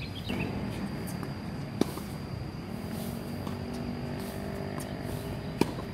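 Two sharp tennis-ball strikes off a racket, about four seconds apart. Between them a steady engine hum, as of a passing motorbike, rises from the background.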